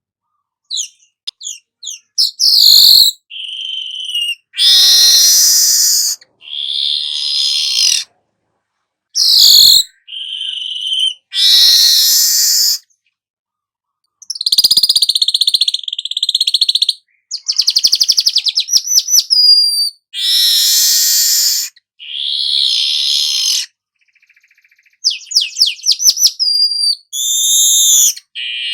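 Weaver bird (manyar kepala emas) singing: a series of loud, harsh, buzzy chattering phrases and rapid trills, each lasting a second or two, separated by short silent breaks.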